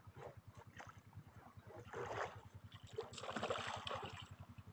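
A small boat's engine running with a steady, rapid putter, with two bursts of splashing, about two seconds in and again from about three to four seconds, as a hooked skipjack tuna is hauled to the surface on a hand line.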